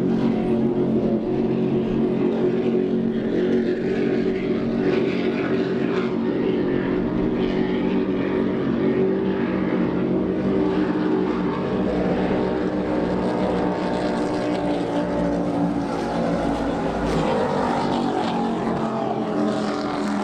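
Racing powerboat engines running at speed offshore, a steady engine drone that holds one pitch throughout.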